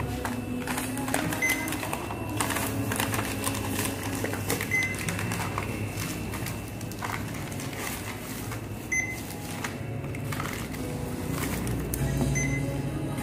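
Checkout barcode scanner beeping four times, a few seconds apart, over the rustle of a plastic carrier bag and items being handled at the counter.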